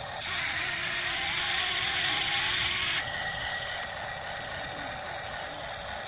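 Small electric gear motors of a toy RC excavator whirring as its boom and bucket lift, with a sharp change about three seconds in, after which a fainter steady whine continues.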